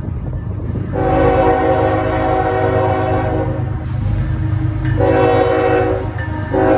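CSX freight locomotive's air horn blowing for a road grade crossing as the train approaches: a long blast, a shorter one about five seconds in, and another starting near the end, over the steady rumble of the diesel engines.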